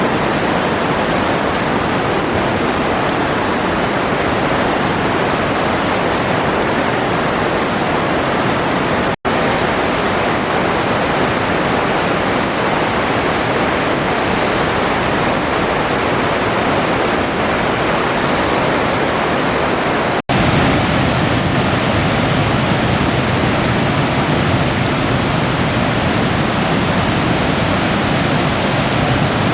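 Steady rushing of river water. Two brief dropouts break it, and after the second, about two-thirds of the way in, it carries a deeper rumble.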